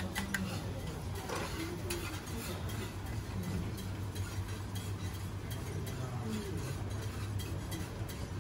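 Restaurant ambience at a teppanyaki counter: a steady low hum under faint background voices, with a few light clinks in the first couple of seconds as a spoon works on a porcelain plate.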